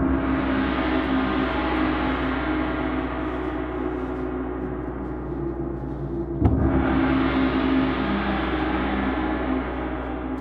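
Resonant struck percussion, hit twice: once at the start and again about six and a half seconds in. Each strike rings on as a dense, sustained tone, and the sound fades out near the end.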